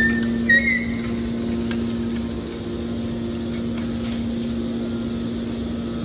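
Hydraulic scrap metal baler running with a steady hum while it pushes a compressed bale of steel wire out of its chamber. Brief high metallic squeaks in the first second.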